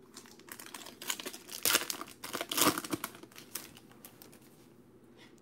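Foil wrapper of a trading-card pack crinkling and tearing as it is pulled open by hand: a run of crackles over about three seconds, loudest in the middle, then it goes quiet.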